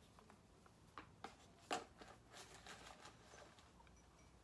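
Faint handling noise: a few soft clicks and rustles, the sharpest a little under two seconds in, as a rubber O-ring seal is worked onto a cartridge oil filter housing cap by hand.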